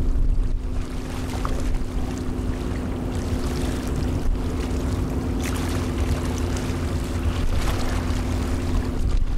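Strong wind buffeting the microphone in a steady low rumble, over the even drone of the car ferry Ocean East's diesel engines carried across the water. A few gusts flare up in the wind noise partway through.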